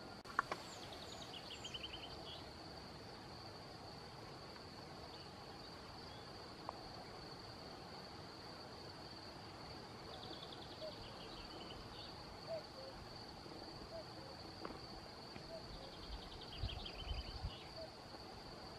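Birdsong over a steady high insect trill: a songbird's descending trill with a final flourish, sung three times. From about halfway, a distant cuckoo calls faintly in repeated two-note pairs, and gusts of wind buffet the microphone near the end.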